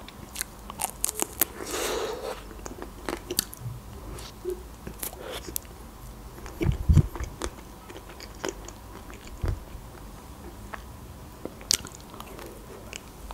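Close-up eating sounds of Milka ice cream with chocolate pieces being bitten and chewed: many small sharp crunches and clicks with wet mouth sounds, and a louder knock about seven seconds in.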